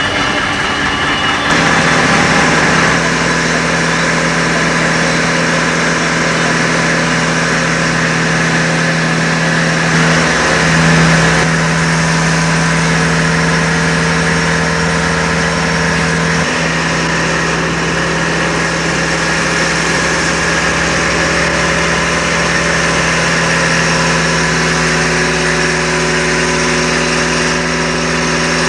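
Fishing boat's engine running steadily at low speed, a constant hum with small shifts in pitch about ten and sixteen seconds in.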